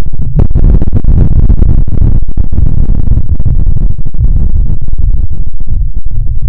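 Distant explosion: a deep, loud rumble with crackling through it that rolls on for several seconds and eases a little near the end.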